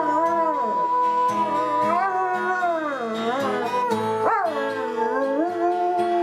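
A dog howling in long, wavering glides that dip and rise in pitch, over background music.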